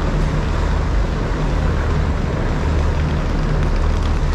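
Docked passenger ferry's engines running: a steady low hum under a broad, even rush of noise.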